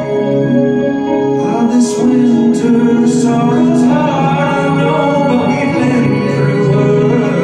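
Live band music heard from within the crowd: sustained organ-like synth chords, with a singing voice coming in about a second in and a few short bright percussive hits.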